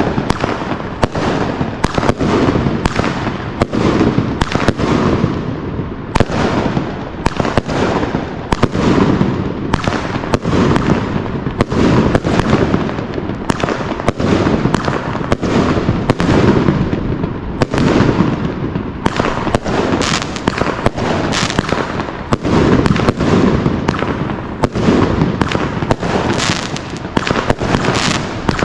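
Cockeyed 25-shot firework cake firing its shots in quick succession: a steady string of sharp bangs from launches and mid-air shell bursts, about one every half second to second.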